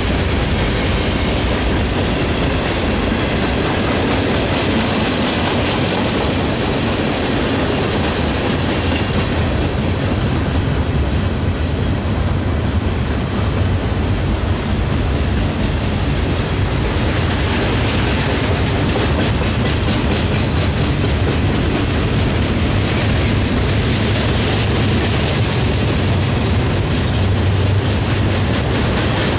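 Cars of a long Norfolk Southern mixed freight train rolling past at speed: a loud, steady rumble and clatter of steel wheels on rail.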